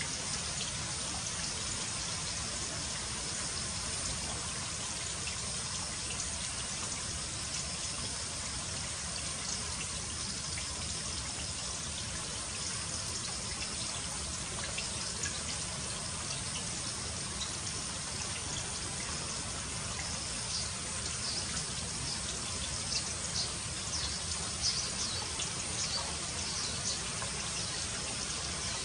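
Steady trickle of running water. A few faint, short high ticks come through in the second half.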